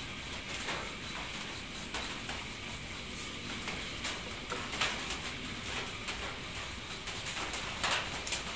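Scattered light clinks and knocks of a glass and a metal spoon against a ceramic bowl as dry pancake mix is scooped and stirred, with a sharper pair of clinks near the end as a glass is picked up.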